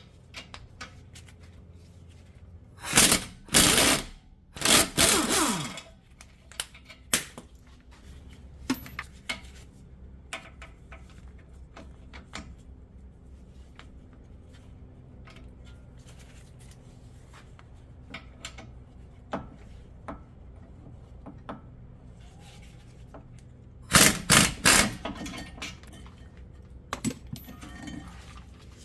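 Impact wrench hammering in short bursts of about a second, twice a few seconds in and again near the end, the motor winding down in pitch after a burst. Small tool clinks come between, as the 21 mm caliper bracket bolts are broken loose.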